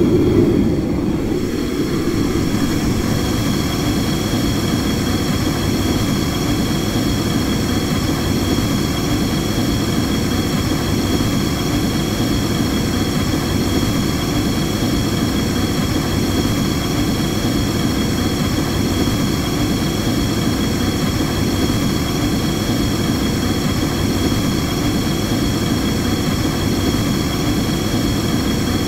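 Gas burner flame burning steadily, a constant low-pitched rush of burning gas.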